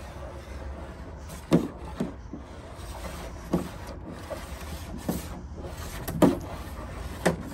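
A puppy's paws and a rope toy with rubber sausages knocking and rubbing on a hollow plastic slide as the puppy scrambles on it and tugs the toy. There are about six dull knocks spread out, over a low steady background.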